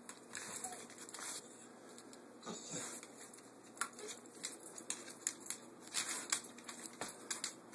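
Dog's claws clicking and tapping on a wooden parquet floor as it moves about, a faint, irregular run of ticks that comes thicker in the second half.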